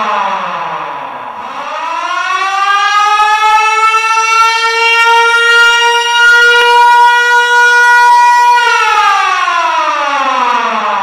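Siren wailing: its pitch slides down, climbs over about two seconds, holds steady for about four seconds, then slides down again near the end.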